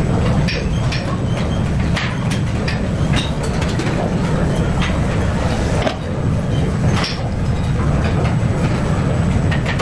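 Gym ambience: a steady low rumble with scattered short metallic clinks and clanks of weight equipment.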